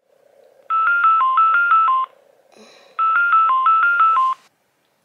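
Phone alarm going off: two runs of quick electronic beeps in a short repeating four-note pattern, each run about a second and a half long, with a short pause between them. It is a wake-up alarm in a dark bedroom in the early morning.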